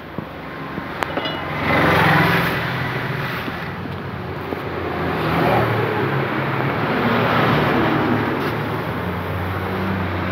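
A motor vehicle engine starts running about a second and a half in and runs on steadily, its speed shifting up and down a few times.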